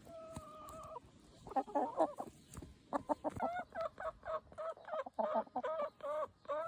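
Backyard hen clucking: a held call at the start, then a quick run of short, repeated clucks, about four a second.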